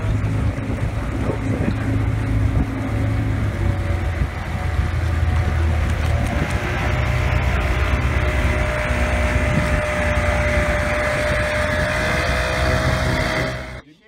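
Small boat's outboard motor running steadily, with wind buffeting the microphone. It cuts off abruptly just before the end.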